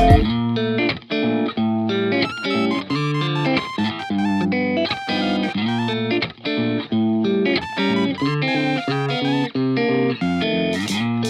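Background music: an electric guitar playing a run of plucked notes over a bass line.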